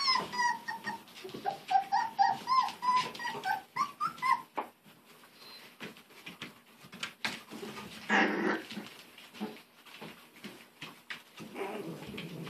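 Miniature beagle puppies whining and yipping in a quick series of short, high, arching calls for about the first four seconds. After that the calls stop and there are scattered sharp clicks and scuffles, with a short rough burst about eight seconds in.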